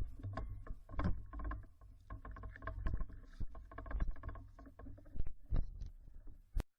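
Irregular knocks and clicks over a low rumble, with one sharp crack near the end.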